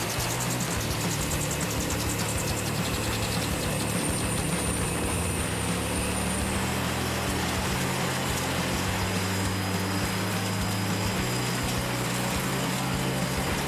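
Wood chipper's engine running steadily at an even pitch, with no sharp impacts of wood being fed.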